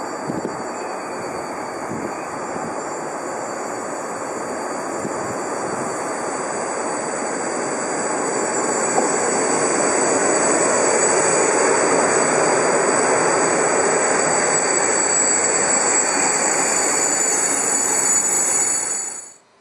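Green Cargo Rc4 electric locomotive hauling a freight train past, with wagons and wheels rolling by in a steady rush of noise that grows louder as the train comes close, and a steady high whine on top. It cuts off suddenly near the end.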